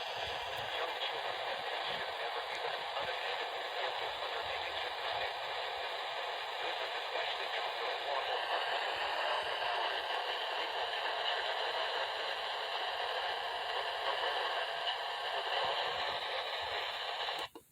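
Steady hiss of static from a weather radio receiver after the broadcast voice has stopped, cutting off suddenly near the end.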